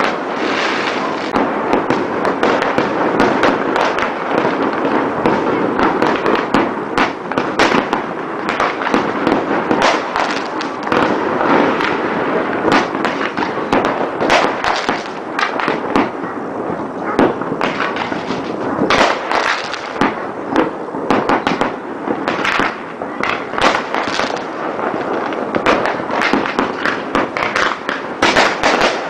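New Year fireworks going off without pause: a dense stream of overlapping bangs and crackling, many salvos at once.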